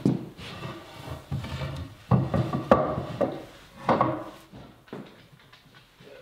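Cherry boards being slid and lifted on a wooden bench: wood scraping and knocking against wood, with several sharp knocks, the loudest about two to three seconds in and again near four seconds.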